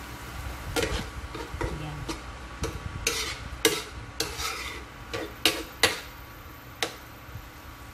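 A cooking spoon stirring sliced vegetables in a nonstick frying pan, making about a dozen irregular scrapes and clacks against the pan. The loudest come between about three and six seconds in.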